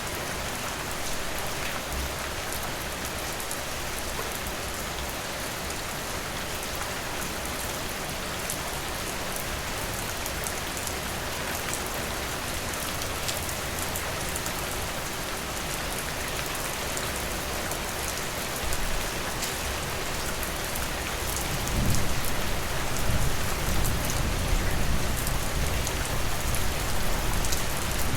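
Steady rain falling, a dense hiss scattered with the ticks of individual drops. About three-quarters of the way in, a low rumble joins underneath and the sound grows louder.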